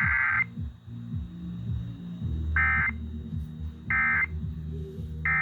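Emergency Alert System digital data bursts (SAME code), a harsh warbling two-tone screech from a radio broadcast: one long burst that stops about half a second in, then three short bursts about a second and a half apart.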